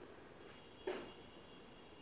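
Faint outdoor garden ambience with a thin, steady high note through most of it. A single short knock comes about a second in and is the loudest sound.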